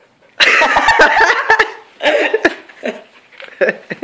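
A person laughing in breathy bursts: one long burst, then a shorter one about two seconds in.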